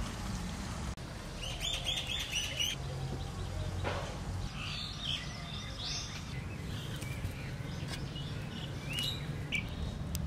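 Small birds chirping outdoors: a quick run of chirps about a second and a half in, then scattered single calls, over a low steady background rumble.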